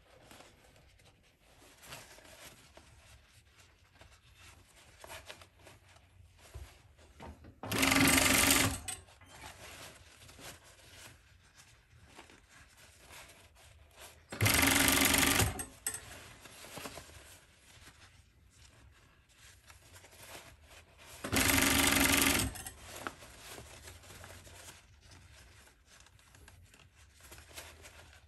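Union Special industrial chain-stitch sewing machine running in three short bursts of about a second each, roughly seven seconds apart, as it stitches a denim jeans hem. Between the bursts there are only faint handling noises of the fabric.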